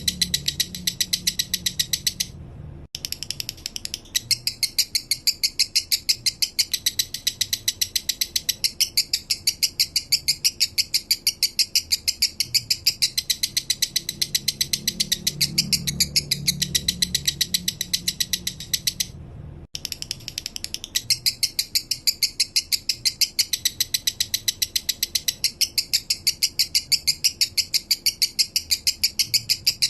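Male lovebird singing its 'minor' song: a long, fast, even chattering series of sharp high chirps, broken by two brief pauses, about two seconds in and about two-thirds of the way through.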